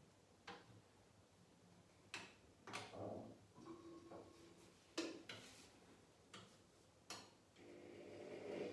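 Whirlpool AWS 71200 front-loading washing machine starting its cycle: about six sharp clicks from the machine as the program starts. Near the end a low mechanical hum builds steadily as the machine begins its load-sensing stage.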